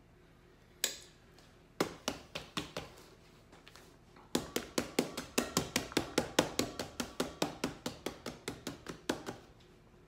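A disposable foil loaf pan full of cake batter being rapped on a wooden counter to settle the batter. There is one knock, then a few quick knocks, then a steady run of about five knocks a second for some five seconds.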